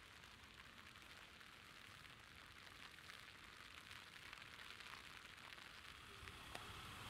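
Light rain falling on a street, a faint even hiss with fine drop ticks. A low rumble begins to rise near the end.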